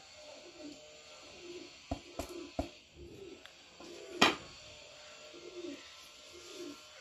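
A plate of ground spice tapped against a steel mixing bowl as the powder is shaken out over radish pieces: a few light knocks about two seconds in, then one sharp clack about four seconds in as the plate is set down.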